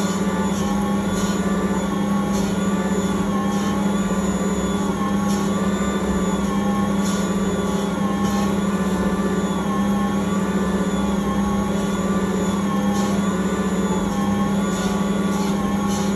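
Ankarsrum Original Assistant stand mixer running steadily while its roller and scraper knead pizza dough in the turning stainless steel bowl: a motor hum that wavers slightly in pitch, with light irregular knocks.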